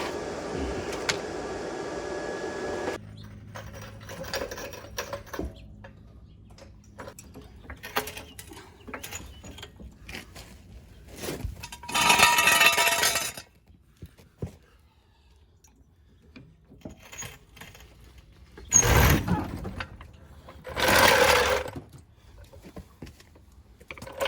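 Tools and metal parts clinking and rattling as they are handled, with a few louder scraping or rustling bursts about a second long each. A steady hum with a faint whine cuts off about three seconds in.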